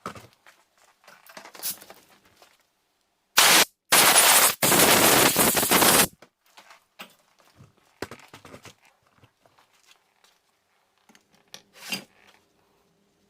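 Three loud bursts of hissing noise a few seconds in: a short one, then two longer ones almost back to back. Light clicks and rattles of handling come before and after.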